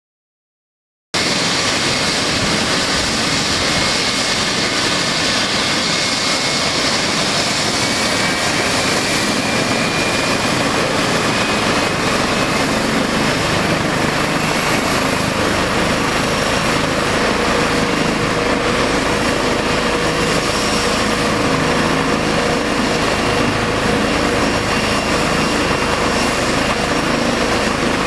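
Medical helicopter running on the ground: a loud, steady rush of turbine and rotor noise with a thin high whine that rises slightly in pitch. It cuts in abruptly about a second in, and a deep low rumble fills in about halfway through.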